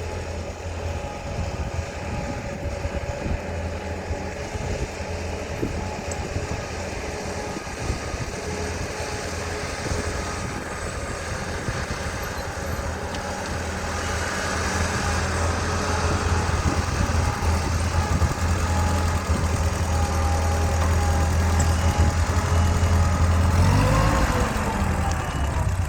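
Ford 8N tractor's four-cylinder engine running at idle, growing louder about halfway through, with a brief rise and fall in pitch near the end.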